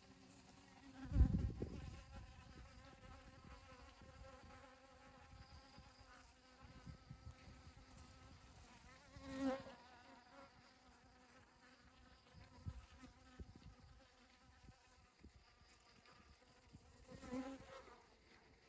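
Honeybees buzzing as they forage for pollen on a dragon fruit flower: a steady hum that swells twice as a bee flies close, about halfway through and near the end. A brief low rumble about a second in.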